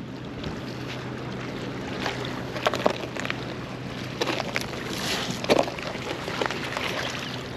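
Water splashing and lapping, with a run of irregular sharp clicks and knocks from about two seconds in, over wind on the microphone.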